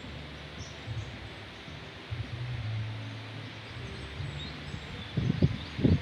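Wind blowing through mahogany trees, the leaves rustling with a steady hiss. About five seconds in, gusts start hitting the microphone in loud, irregular low rumbles.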